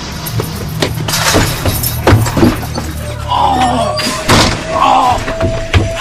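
Dark film score with a steady low drone, broken by several sharp thuds and crashes, with short bursts of voice in the second half.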